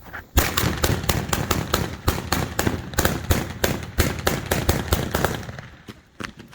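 Fireworks going off in a rapid, irregular string of sharp bangs, several a second, for about five seconds, tailing off to a couple of last pops near the end.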